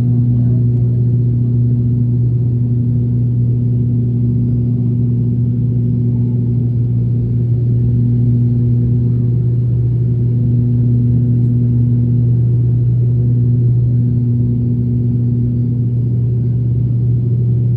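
Steady drone of an ATR turboprop airliner's engines and propellers heard inside the cabin during descent: a strong low hum with a higher tone that comes and goes.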